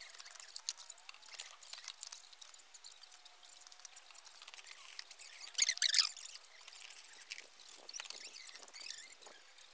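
Fast-forwarded timelapse sound of work on a camera crane: a rapid patter of small clicks and squeaky chirps, with a louder clattering rush about six seconds in.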